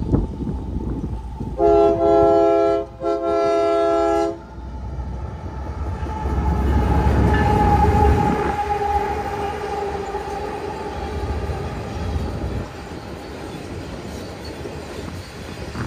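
Freight train led by GE ES44AC diesel locomotives sounding its multi-chime air horn in two blasts, the second longer. The locomotives then pass with a heavy low rumble that peaks a few seconds later and settles into the steady rolling of the train's cars.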